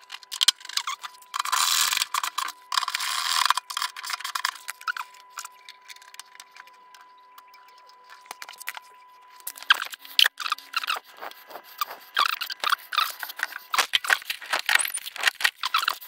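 Hands working inside the underside of a washing machine: two bursts of rustling and scraping a second or two in, then a run of small irregular clicks and scrapes from plastic parts and the drain hose being handled in the second half. A faint steady whine runs through the first half.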